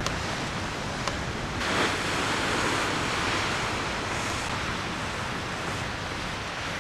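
Wind and the wash of the sea past a square-rigged sailing ship under way: a steady rushing hiss that swells for a second or so about two seconds in.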